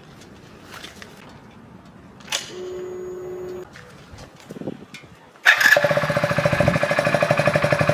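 Hero Splendor's single-cylinder four-stroke engine with a Coke bottle wired onto the exhaust, starting suddenly about five and a half seconds in and running with a fast, even putter that the bottle changes. Before it, a click and a short steady hum.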